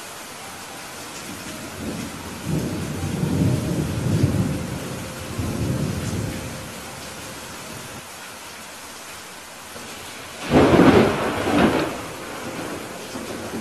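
Steady hiss of heavy rain, with a long rolling rumble of thunder about two seconds in and a louder, sharper thunderclap with two peaks about ten and a half seconds in.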